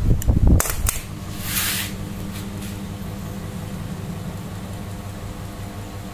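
A few sharp clicks and handling noise, then a short hiss, then a steady low mechanical hum like a running fan.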